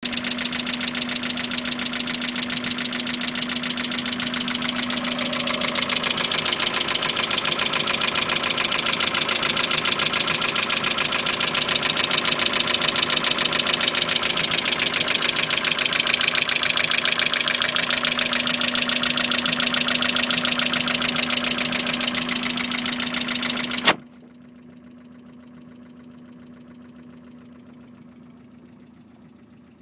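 Mazda MX-5 1.8-litre four-cylinder engine idling with a fast, even ticking, which the owner takes for a rough idle. About 24 seconds in it cuts off suddenly, leaving a faint steady hum.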